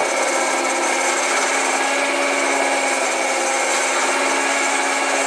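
Electric stand mixer running steadily, its beaters whisking cake batter in a steel bowl, with a constant motor hum.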